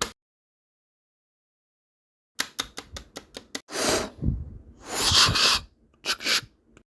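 Gunshot sound effects: after a silent gap, a rapid burst of about eight sharp shots like automatic fire, then a few louder, longer blasts with hissing tails.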